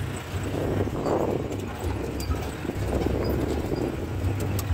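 Mahindra CJ 550 jeep driving over a rough dirt track, heard from inside the open cab: a steady low engine rumble with scattered knocks and rattles, and two swells of noise about one and three seconds in.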